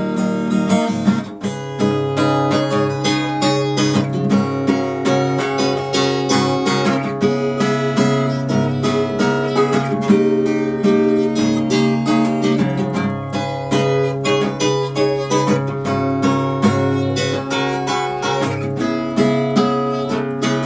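Acoustic guitar strummed in a steady rhythm, playing an instrumental passage of a chanson song without singing.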